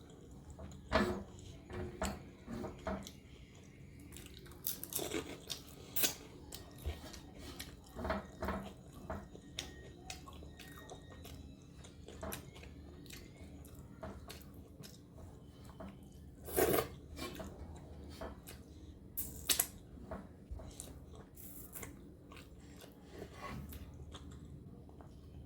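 Close-up eating sounds: chewing and biting, with occasional sharp crunches, a few of them louder at about a second in, about six seconds in, and between about sixteen and twenty seconds in.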